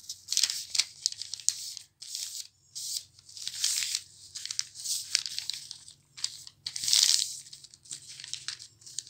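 Cloth being handled, rustling and crinkling in irregular bursts of about half a second to a second each, with short pauses between.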